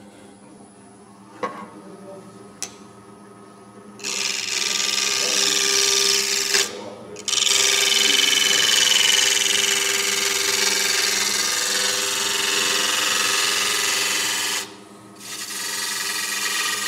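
A wood lathe runs with a steady hum while a gouge cuts the spinning cedar of Lebanon blank. There are three cuts: a loud one about four seconds in lasting a couple of seconds, a longer loud one from about seven to fifteen seconds, and a lighter one near the end. Two light ticks come before the first cut.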